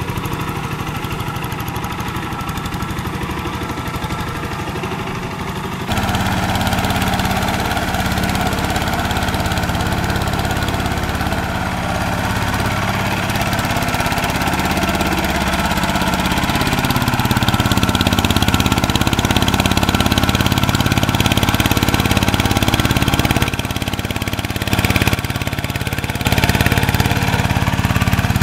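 Kubota 11 hp single-cylinder diesel engine of a two-wheel hand tractor running steadily under load while the tractor works a flooded rice paddy. The engine sound jumps abruptly louder about six seconds in, then dips and comes back up near the end.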